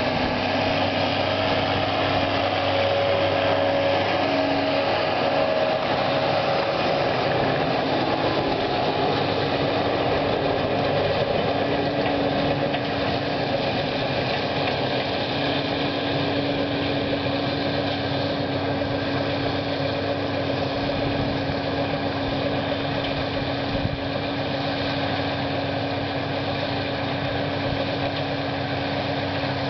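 John Deere 7320 tractor running steadily while pulling a John Deere 854 round baler, the engine and baler together giving a continuous mechanical hum. It gets slightly quieter about twelve seconds in.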